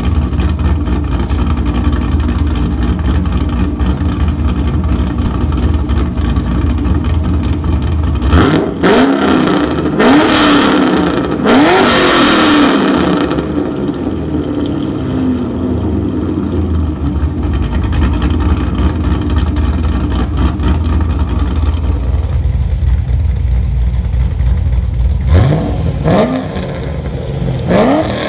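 2005 Cadillac CTS-V's LS6 V8, breathing through OBX headers, an X-pipe, electric exhaust cutouts and Dynomax Ultraflow mufflers, idling steadily at the tailpipes. It is blipped three times in quick succession about a third of the way in, settles back to idle, then is revved three more times near the end.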